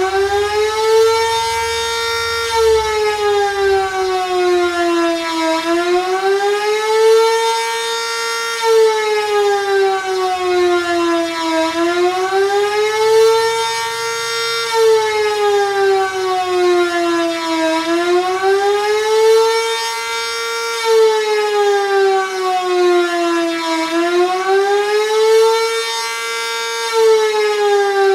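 Sentry 3V8 tornado siren sounding a test of its rising-and-falling wail signal, an attack or fast-wail pattern: the tone climbs for about three seconds, then sinks for about three, repeating every six seconds or so. One strong steady pitch with many overtones.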